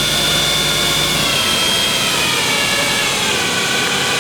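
Spindle of a Mori Seiki SL-OH CNC turning center running at a few thousand RPM with a steady high whine and hum. From about a second in, the whine glides down in pitch as the spindle slows.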